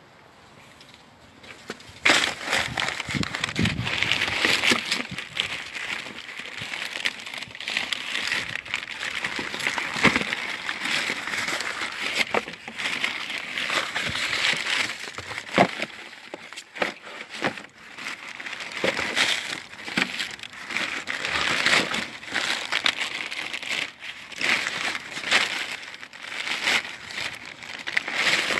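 Cardboard packaging and plastic wrap rustling and crinkling as a new clutch kit is unpacked by hand, with many small knocks and clicks of handling; it starts about two seconds in.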